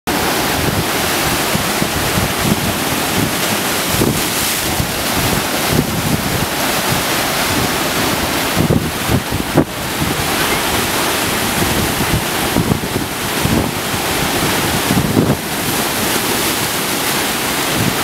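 Ocean waves breaking against rocks, a continuous wash of churning white water. Wind buffets the microphone in gusts throughout.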